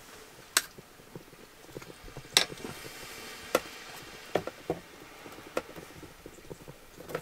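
Scattered sharp clicks and taps, about half a dozen, with a short rasp about two and a half seconds in, as hands press strips of tape onto a shattered plastic camper window and fit the broken pieces back together.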